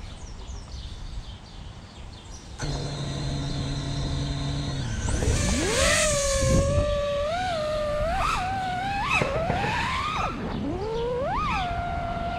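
Five-inch FPV freestyle quadcopter's brushless motors (Brotherhobby Avenger 2207.5 2350kv on HQProp J37 props). About two and a half seconds in they start with a steady low hum as they spin up at idle. Around five seconds in the whine climbs as the quad takes off, then rises and falls with the throttle, with several sharp upward swoops near the end.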